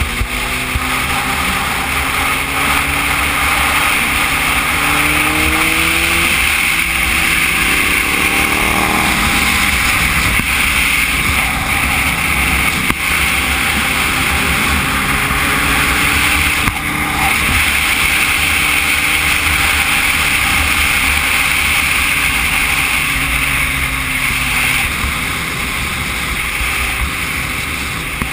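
Sport motorcycle running at highway speed, its engine under a heavy rush of wind on the action camera's microphone. The engine pitch climbs between about three and nine seconds in as it accelerates.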